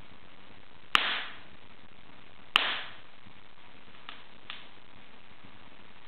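Wood fire in an open fireplace crackling: two loud, sharp pops about a second and a half apart, each trailing off in a brief hiss, then two faint ticks, over a steady background hiss.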